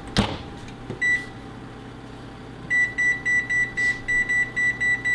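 Oven's electronic control beeping: one short high beep about a second in, then a fast, even run of high beeps, about four a second, over a steady low hum.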